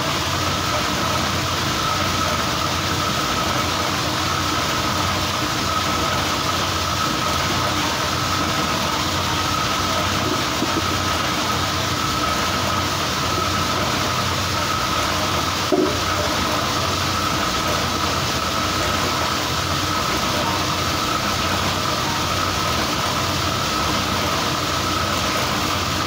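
Mustard oil expeller (screw press) running steadily while pressing seed: a continuous mechanical clatter and hum with a steady high tone. A single brief knock sounds about 16 seconds in.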